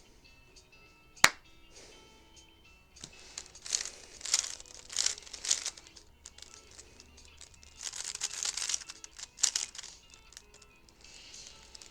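Plastic 3x3 speed cube being turned in fast flurries: rapid clacking and scraping of the layers, in two bursts about three seconds in and about eight seconds in, after a single sharp click about a second in.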